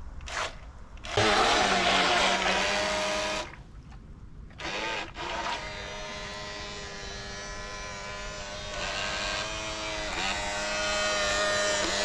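A toy radio-controlled speedboat's small electric motor whines and its propeller churns the water. The motor starts loud about a second in, drops out for about a second around four seconds in, then runs on steadily with small dips in pitch.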